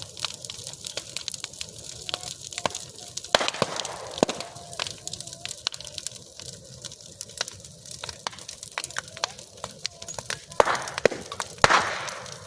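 Bonfire crackling: a steady hiss with constant sharp snaps and pops, and a few louder cracks about three seconds in and near the end.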